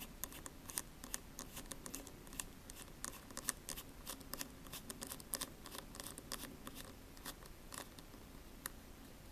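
Faint, irregular small clicks and light scrapes of small hand tools handling tiny screws and parts inside an opened iPhone 5c.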